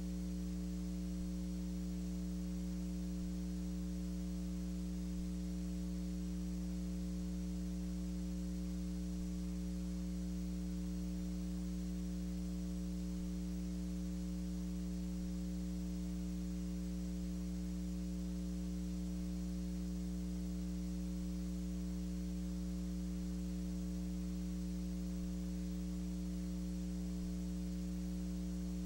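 Steady electrical mains hum with a stack of overtones and faint hiss, unchanging.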